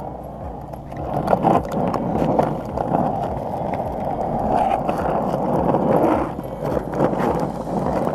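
Skateboard wheels rolling over an asphalt path: a steady rough rumble with occasional short clicks.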